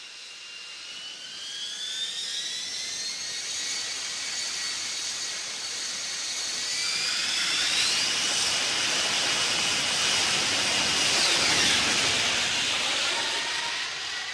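F-35B jet engine with its lift fan engaged (STOVL mode), spooling up with a high whine that rises in pitch, then building to a loud roar at takeoff power as the jet makes a short takeoff run and lifts off. A falling pitch is heard near the end as it passes.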